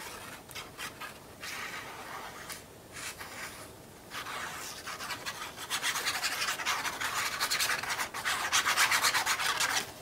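The tip of a liquid glue bottle rubbed back and forth across a strip of patterned paper, spreading glue: scattered scraping strokes at first, then a fast, louder run of rubbing strokes through the second half that stops just before the end.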